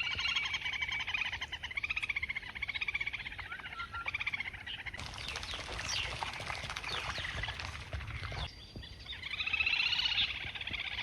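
Frogs calling in a chorus of rapid, wavering trills, with a few seconds of steady hissing noise in the middle that stops suddenly.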